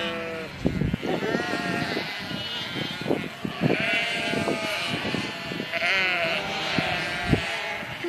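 Sheep bleating again and again, a string of separate calls, some with a wavering, quavering pitch.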